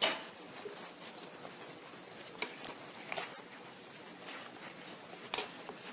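A mixing utensil stirring a wet batter of chopped apples, oil, eggs and sugar in a bowl. It is faint, with a few short clicks of the utensil knocking against the bowl.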